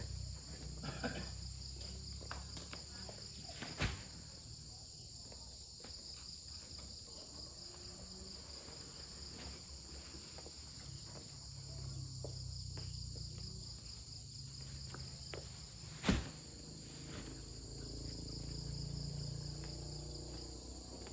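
Insects chirring steadily in a high, unbroken drone over a low rumble that swells and fades. Two sharp knocks stand out, one about four seconds in and one about three-quarters of the way through.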